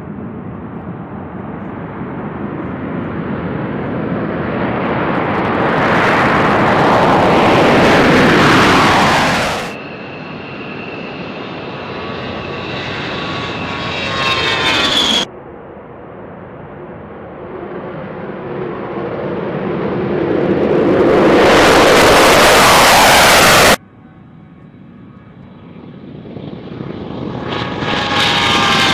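Jet aircraft taking off in a run of edited takes: engine noise swells to a loud rush and cuts off abruptly three times, about 10, 15 and 24 seconds in. In the takes of A-10 Thunderbolt II attack jets lifting off, the whine of their twin General Electric TF34 turbofans slides down in pitch as they pass.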